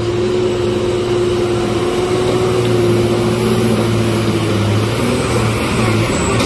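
Engine of a loaded cargo truck working steadily under load as it climbs a steep, muddy slope: a constant engine drone with a held whine over it.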